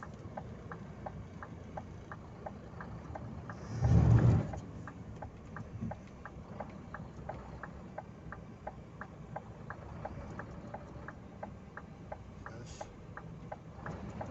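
Dump truck engine running under a steady, even ticking about twice a second, with one loud rush of sound about four seconds in.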